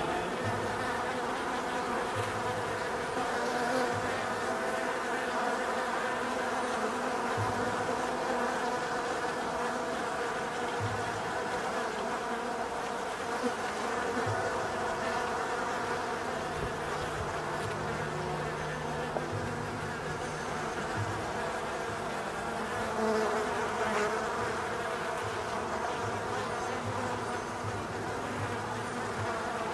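Honeybees buzzing at the entrance of a wooden hive: a steady, continuous hum of many bees flying in and out.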